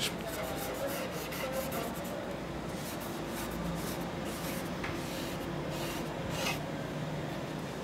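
Cotton swab rubbing over the surface of an old oil painting in quick, repeated short strokes as it is cleaned for restoration.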